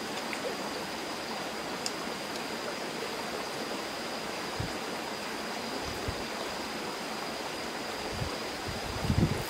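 Steady rushing of stream water, with a thin high steady tone above it and a few soft low thumps in the second half, the loudest just before the end.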